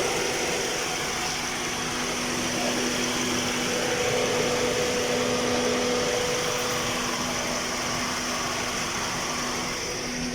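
Freshly rebuilt Toyota Vios 1NZ-FE four-cylinder engine idling with a steady hum and fan-like rush and no knocking, a sign that the rebuilt bottom end is running sound.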